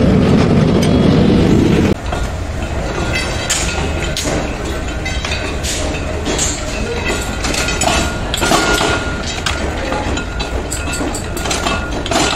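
Metalworking workshop noise: a machine running steadily under many irregular metal clanks and knocks. A heavier rumble cuts off abruptly about two seconds in.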